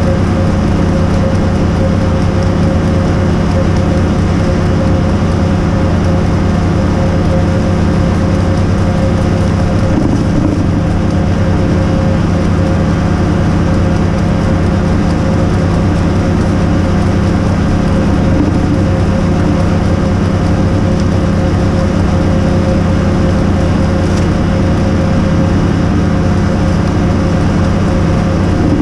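Hydroseeder's engine running steadily at a constant speed while a load of hydraulic mulch slurry is mixed in the tank, a loud, even drone with a fixed hum.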